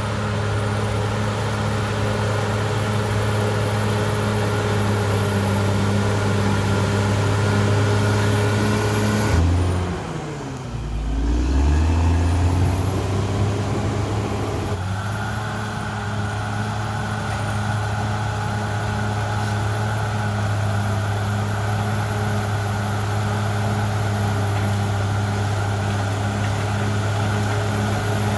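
Cat D6R XL bulldozer's diesel engine running hard at a steady speed. About ten seconds in, the engine speed drops sharply and then climbs back up to a steady run.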